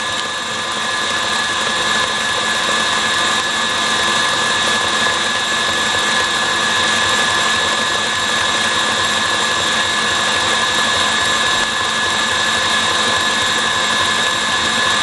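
KitchenAid stand mixer running at speed, its wire whisk beating marshmallow mixture in a stainless steel bowl as it thickens: a steady motor whine over the whir of the whisk.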